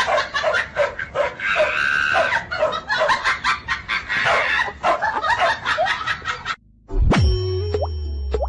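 A dog barking rapidly and repeatedly, about three barks a second. Near the end it cuts off and a cartoon plop sound effect plays over music.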